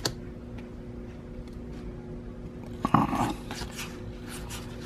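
Pokémon trading cards being slid and flicked against each other in the hands, soft scrapes and ticks over a steady low hum, with a short louder rustle about three seconds in.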